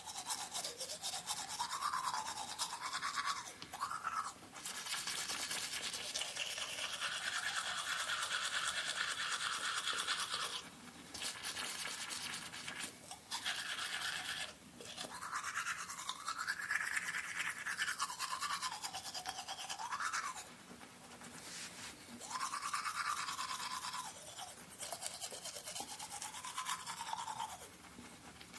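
Teeth being brushed with a toothbrush: a continuous wet scrubbing whose pitch shifts up and down as the brush moves around the mouth, broken by a few short pauses.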